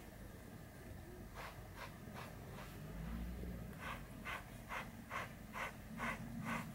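Grooming brush stroking through a cat's belly fur, each stroke a short scratchy brush. There are a few scattered strokes in the first half, then a steady rhythm of about two strokes a second from about four seconds in.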